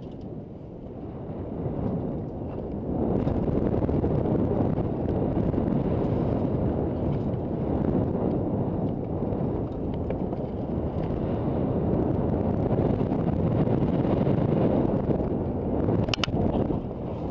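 Wind buffeting the camera's microphone over the rumble of a Kona Stab downhill mountain bike's tyres rolling fast down a dirt trail, growing louder about three seconds in. A few sharp clicks near the end.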